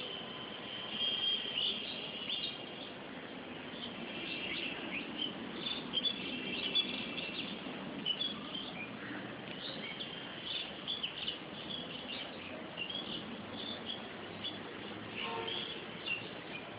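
Birds chirping: many short, high chirps, overlapping and scattered irregularly, over a steady low background hum.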